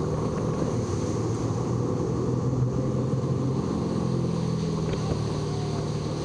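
Motorboat engine running at a steady cruising speed, a low even hum, mixed with wind rushing over the microphone and water noise from the moving hull.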